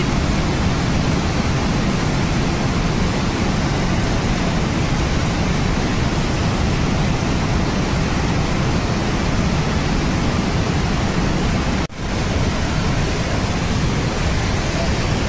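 Swollen mountain stream in flash flood after a cloudburst: a steady, loud rushing of floodwater. It cuts out for a moment about 12 seconds in.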